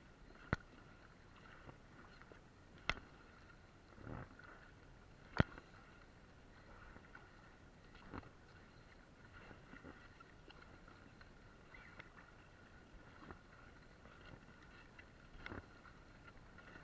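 Paddle strokes in seawater from an inflatable ring: faint splashes and swishes at intervals, with a few sharp knocks, three of them in the first six seconds.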